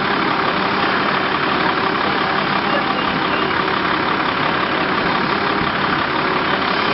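Fire apparatus diesel engine running steadily at the scene, a constant loud drone that does not change.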